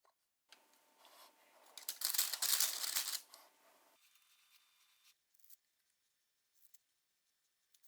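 A crinkling, tearing noise of sheet material being handled for about three seconds, loudest in the middle, followed by a few faint ticks.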